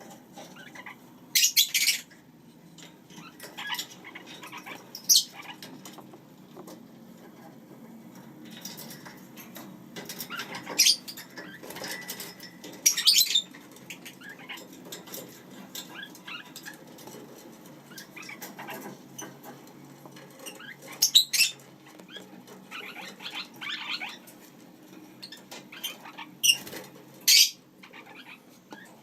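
Lineolated parakeets giving short, sharp squawks every few seconds, with softer chirping between.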